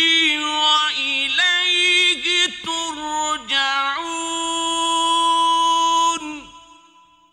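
Male voice reciting the Quran in a melodic chant, its line winding through quick ornamental turns. About four seconds in it settles on one long held note, which fades away near the end.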